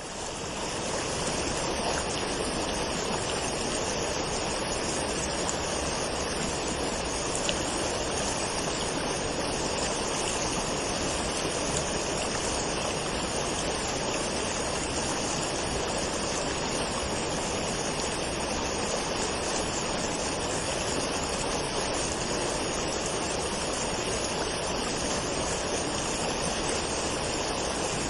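Waterfall: water falling and rushing in a steady, unbroken roar, fading in over the first second.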